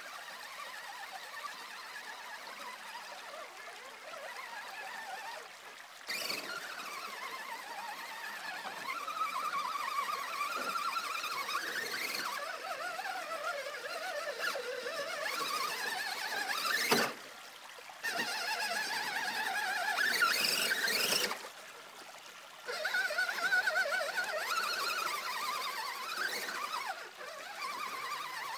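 Electric motor and gears of a radio-controlled scale pickup truck whining as it crawls through a shallow stream, the pitch rising and falling with the throttle, over the trickle and splash of water. The whine cuts out briefly twice, once around the middle and once a few seconds later.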